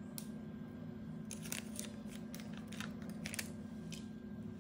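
A baked brownie being broken and handled by hand, its crisp top crust crackling in a scatter of sharp ticks, most of them between about one and three and a half seconds in. A steady low hum runs underneath.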